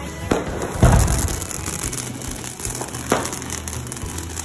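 Handheld stick firework spraying sparks with a continuous crackling hiss. It starts with a loud bang about a second in, and another sharp bang comes near three seconds.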